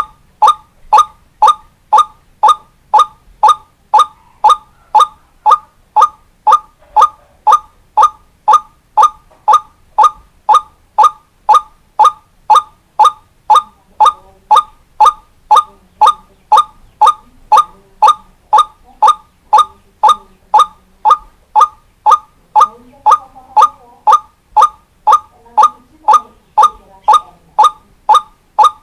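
White-breasted waterhen (ruak-ruak) call used as a lure, a short note repeated evenly about twice a second without a break.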